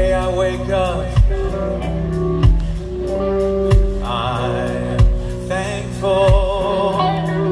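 Live rock band playing: electric guitars, bass and drum kit, with a heavy drum hit about every second and a quarter and cymbals between. A male singer comes in about four seconds in, singing with vibrato.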